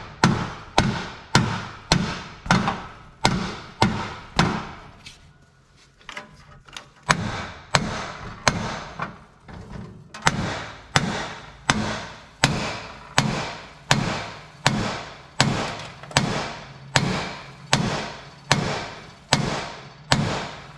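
A big hammer pounding a rust-seized front steering spindle on a John Deere 175 riding mower, driving it upward out of the axle. Steady blows come a little more than once a second, each ringing briefly, with one pause of about two seconds near a quarter of the way in. The spindle is rusted almost solid.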